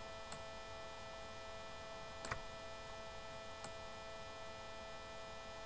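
Steady faint electrical hum with a few soft computer mouse clicks: one near the start, a quick double click a little after two seconds, and another at about three and a half seconds.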